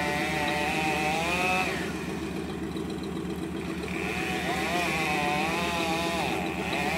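Chainsaw running at high revs, its pitch wavering up and down as it cuts. About two seconds in it eases off for a couple of seconds, then revs back up.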